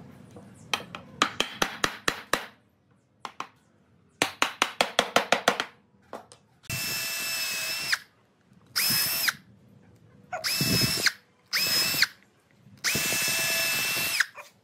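Cordless drill with a countersink bit boring screw holes into a wooden crossbeam in five short runs, each a steady whine that starts and stops abruptly. Before the drilling, two quick series of sharp clicks.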